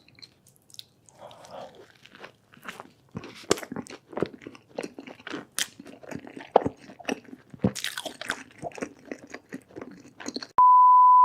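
Close-miked eating: crunchy bites and chewing, with many irregular sharp crunches. Near the end a loud, steady single-pitch beep cuts in.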